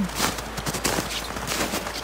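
Footsteps crunching in packed snow on a trail, a few steady walking steps.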